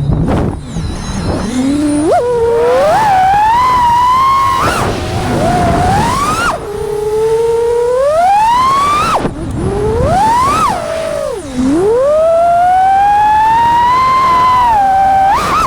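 FPV quadcopter's brushless motors whining, the pitch sweeping up and down sharply as the throttle is punched and cut, with a deep dip in pitch a little past the middle before a long steady climb.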